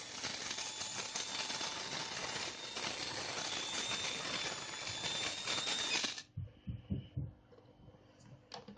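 Small electric motor driving a homemade prototype reduction gearbox, running with a dense gear rattle and a steady whine, then cutting off suddenly about six seconds in. A few soft knocks from handling follow.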